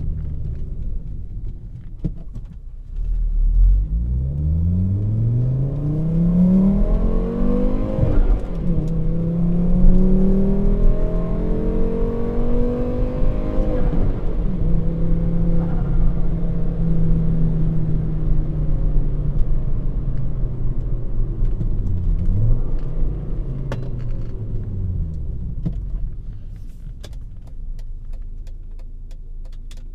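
Volvo S60 2.0T turbo engine through a straight-pipe exhaust with no catalyst and two straight-through mufflers, pulling hard and climbing in pitch twice with a gear change between. It then holds a steady cruise, dips and rises briefly, and eases off, going quieter near the end.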